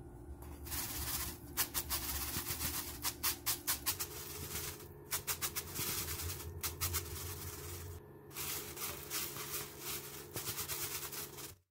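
Dried shrimp rattling and rustling in a metal mesh strainer as they are shaken and rubbed by hand to sift the crumbs out, in quick rhythmic strokes with two brief pauses. It cuts off suddenly near the end.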